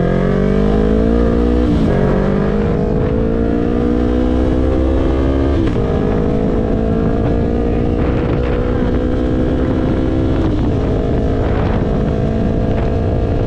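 Yamaha YZF-R3's parallel-twin engine accelerating through the gears. Its pitch climbs, then drops sharply at upshifts about two, six and ten seconds in, and runs steadier near the end.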